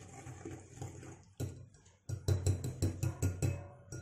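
Wire whisk beating a wet mixture in a glass bowl: soft rapid swishing, then a sharp click, then about a second of fast clinks of the whisk against the glass.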